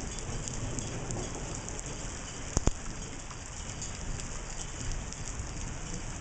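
Steady rain, with scattered drop clicks. One sharp click about two and a half seconds in is the loudest thing.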